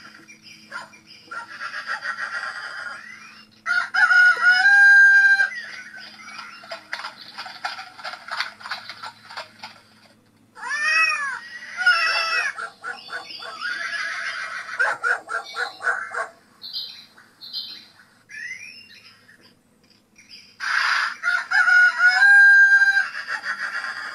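Recorded farmyard sound effects played back from a model layout's sound chip: a rooster crowing and hens clucking among other animal calls. The same crow comes round again near the end, as the loop repeats.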